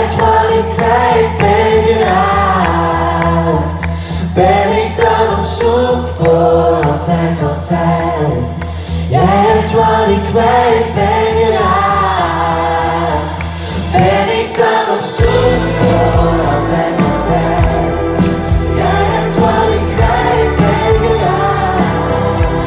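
Live pop band playing, with a male and a female voice singing together in phrases over keyboards and a low pulsing bass, heard from the crowd in a concert hall. The bass line changes about fifteen seconds in.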